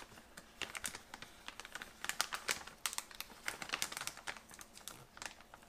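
Fingers picking and pulling at the edge of a stiff vacuum-sealed plastic ration bag: a run of light, irregular clicks and crinkles of thick plastic film.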